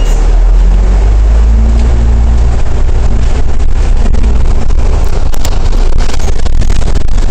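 The Cummins ISL8.9 diesel engine of an Alexander Dennis Trident E500 double-decker bus pulling away from a stop, heard on board as a loud low rumble. The engine note rises over the first few seconds as the bus gathers speed, and knocks and rattles come in from about five seconds in.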